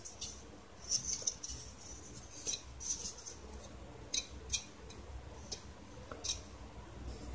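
Light clicks and rubbing of a plastic 12 cm cooling fan being handled while unpowered, fingers brushing and knocking its blades and frame; a few separate clicks spread over several seconds.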